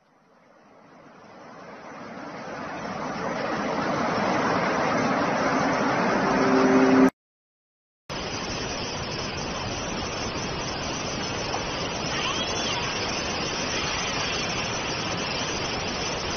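Floodwater rushing and churning in a steady roar. It swells up from nothing over the first few seconds, with a brief low steady tone joining before it cuts out for about a second. The rushing of a swollen river then carries on evenly.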